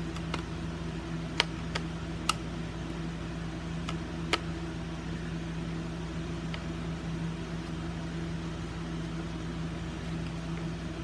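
Steady low hum with four light clicks in the first half, from a screw being driven back into a fire alarm horn strobe by hand.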